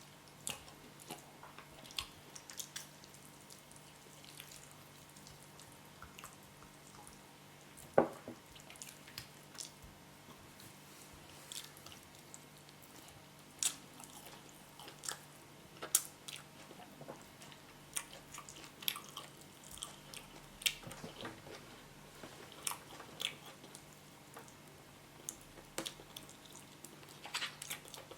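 A person chewing a mouthful of yam and spinach close to the microphone: short wet mouth clicks and smacks, coming irregularly, the sharpest about eight seconds in.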